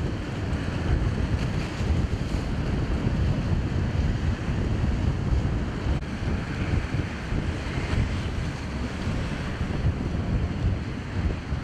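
Wind buffeting the microphone in uneven gusts, over the wash of choppy sea water.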